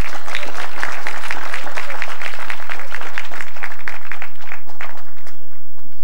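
Audience applauding, a dense clapping that dies away shortly before the end.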